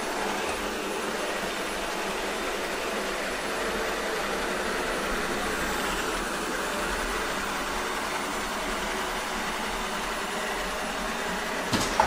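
Shark Ion robot vacuum running steadily across a hardwood floor, a continuous, not very loud hum of its motor and brushes. A brief click comes just before the end.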